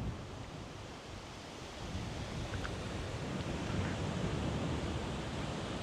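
River current rushing steadily past a rock break, with wind buffeting the microphone in low gusts that grow stronger about two seconds in.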